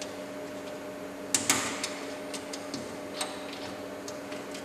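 Threaded circular cable connector being pushed into a panel socket and screwed tight: a string of small clicks and taps, the loudest a pair about one and a half seconds in, over a steady low hum.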